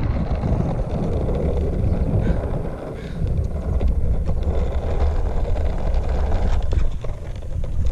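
Longboard's urethane wheels (66mm Powell-Peralta Snakes) rolling over rough, aggregate-studded concrete and worn slurry-seal asphalt, a steady low rumble mixed with wind buffeting the microphone, with a few sharp clicks near the end.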